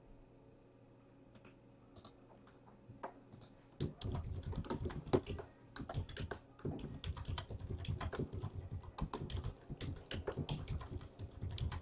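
Typing on a computer keyboard: a quick, irregular run of key clicks that starts about four seconds in, after near silence.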